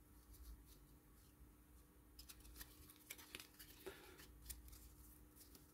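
Faint, scattered ticks and rustles of a stack of baseball trading cards being handled and flipped through in the hands.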